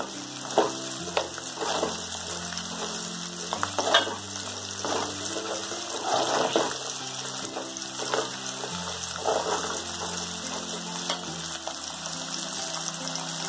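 Garlic cloves sizzling in hot oil in a metal kadai as they are sautéed, with a slotted spoon scraping and stirring through them in irregular strokes. Background music with sustained low notes plays under it.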